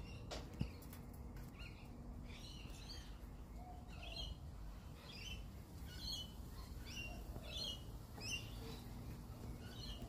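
Australian magpies calling: a run of short, high, repeated chirps, about two a second, over quiet outdoor background. A single sharp click sounds about half a second in.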